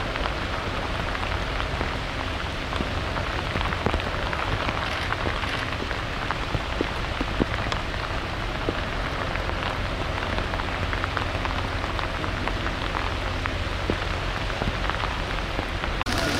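Steady rain falling, with scattered sharp ticks of drops landing close by and a steady low rumble underneath.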